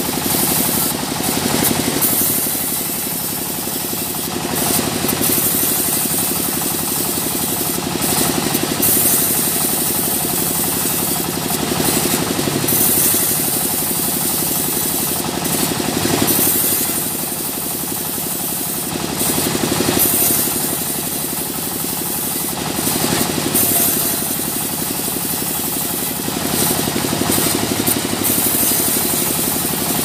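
Sawmill machinery running steadily while a saw cuts mahogany, the sound swelling and easing every few seconds.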